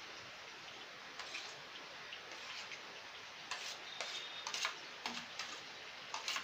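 A perforated steel masher scraping and tapping against a steel bowl as mashed boiled potato is scraped out: a scattering of light clicks and clinks, more of them in the second half, over a steady faint hiss.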